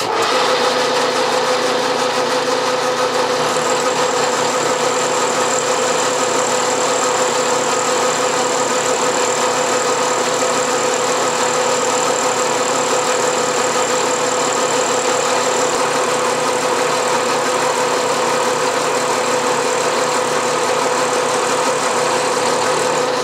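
Vertical milling machine running with a quarter-inch end mill slotting a steel vise body in light 0.025-inch-deep passes: a loud, steady machine hum, with a high whine that comes in a few seconds in and stops near the end.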